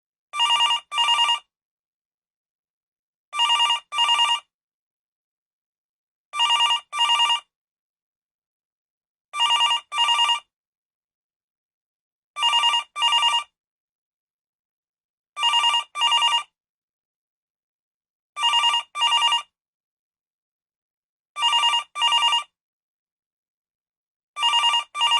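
Telephone ringing in a double-ring pattern: two short rings close together, repeating about every three seconds with silence between.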